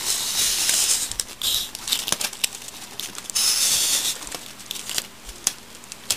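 Adhesive tape pulled off the roll twice, about a second each, the second about three and a half seconds in, amid crinkling of aluminium foil and short handling clicks.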